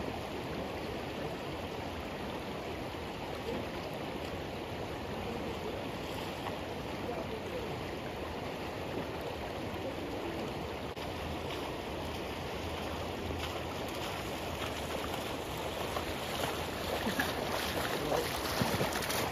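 Shallow river riffle rushing steadily over a gravel bed. Near the end, splashing as a person in waders strides through the shallows.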